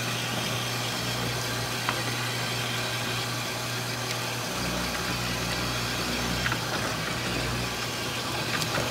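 A steady low machine hum with an even hiss, a deeper rumble joining about halfway through, and a few faint clicks.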